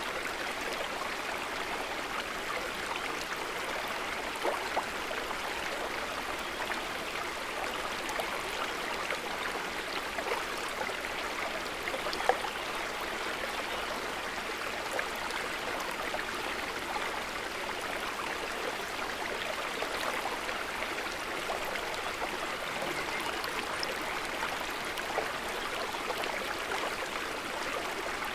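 River water running steadily, an even rushing with a few brief louder ticks, the clearest about twelve seconds in.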